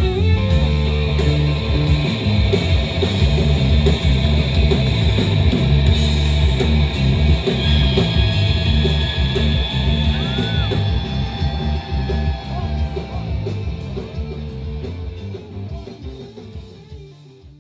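Live rock band playing: distorted electric guitars, bass and drums, recorded from the crowd. The music fades out gradually over the last several seconds.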